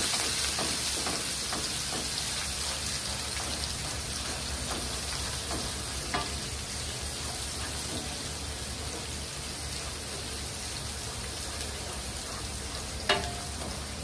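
Chopped shallots and garlic sizzling in hot oil in a nonstick wok, stirred with a wooden spatula that scrapes and ticks against the pan now and then. The sizzle eases off slowly, and a single sharper knock comes near the end.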